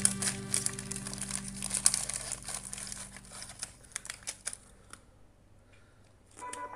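Crinkly snack bag of crispy potato fries being handled and opened: a run of irregular crackles that thins out and stops about five seconds in.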